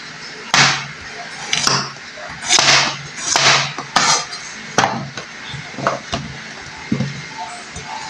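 Chef's knife chopping peeled potatoes into chunks on a cutting board: a string of about eight sharp chops, roughly one a second, each with a short scraping swish as the blade goes through and hits the board.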